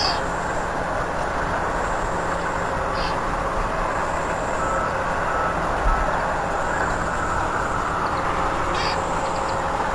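Steady pond-side ambience: a dense, even noisy background with frog croaking mixed in, and a few brief high chirps.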